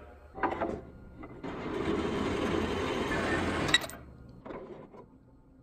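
Jet horizontal metal-cutting bandsaw running steadily, then switched off with a click a little before four seconds in and winding down.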